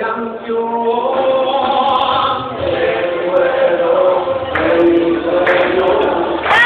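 Several voices singing together at a live show, a choir-like group chant with held notes that slide between pitches.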